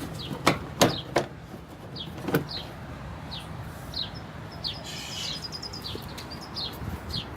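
A small bird chirping over and over, short high falling chirps about twice a second with a quick twitter near the middle. A few sharp knocks sound in the first couple of seconds, over a steady low hum.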